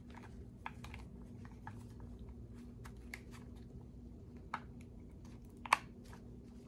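Scattered small clicks and rattles of plastic ignition wiring connectors being handled and pushed onto the coil packs of a Mercury 2.5-litre 150 hp outboard powerhead, with one sharper click near the end.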